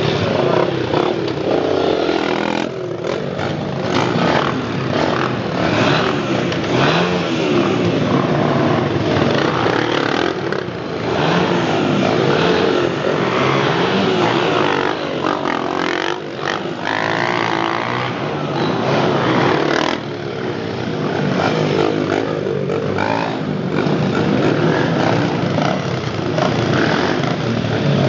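Several Honda CRF dirt bikes' four-stroke single-cylinder engines running together, revving up and down continuously as they ride around.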